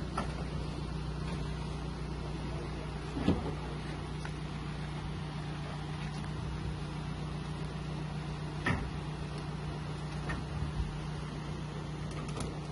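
A vehicle engine idling with a steady low hum, with a few sharp knocks as a metal machine is loaded into a van's cargo floor, the loudest about three seconds in and another near nine seconds.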